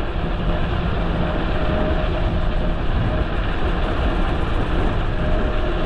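Steady wind rush and tyre noise on asphalt at about 18 mph, heard through a GoPro on the handlebars, heaviest in the low end, with a faint thin tone that comes and goes.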